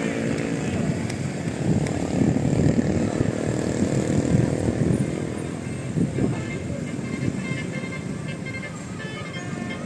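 A large bus passing close, its engine rumbling, loudest a few seconds in and then easing off as it draws away.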